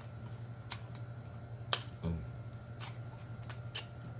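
A person chewing chicken wings close to the microphone: scattered sharp wet mouth clicks and lip smacks, the loudest a little before two seconds in, followed by a brief low thump. A steady low hum runs underneath.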